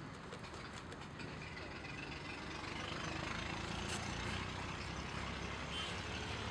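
Street traffic, a vehicle engine running and growing louder about two seconds in, with a single sharp click near the middle.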